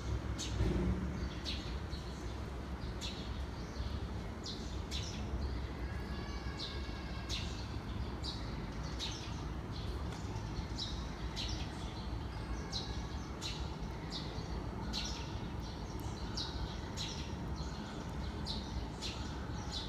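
Small birds chirping, with many short high chirps coming every half second or so throughout, over a steady low background rumble.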